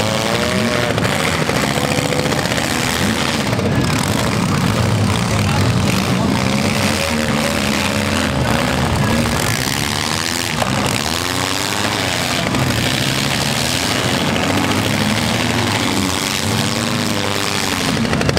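Several small-car engines revving hard in a demolition derby, the pitch rising and falling again and again as the cars push and shove against each other, with a few knocks of metal.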